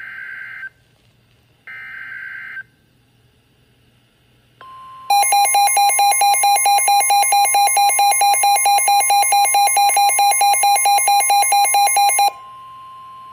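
NOAA Weather Radio warning alert on Midland weather radios: two short buzzy bursts of the digital alert header, then the steady warning alarm tone starts about four and a half seconds in. Half a second later the radios' own alarm joins it as loud, rapid pulsing beeps for about seven seconds, then cuts off, leaving the steady tone.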